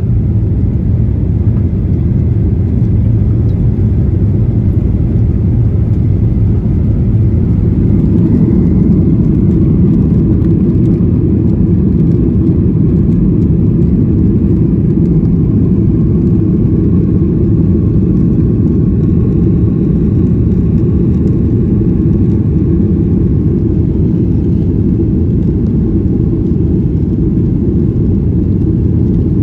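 Steady low rumble of a jet airliner's engines and airflow, heard inside the passenger cabin.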